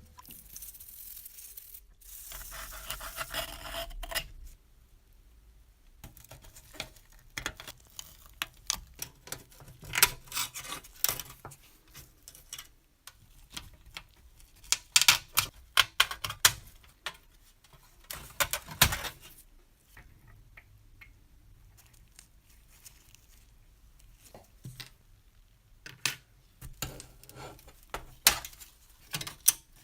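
Small metal clicks, taps and scraping from hand tools and parts being handled on a corroded metal model bus. A stretch of rubbing comes first, then irregular sharp clicks in clusters.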